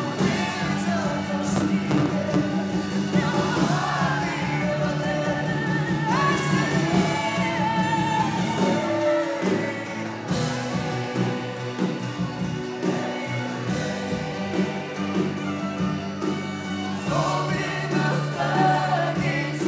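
Church worship music: several voices singing a melody together over held chords from a band.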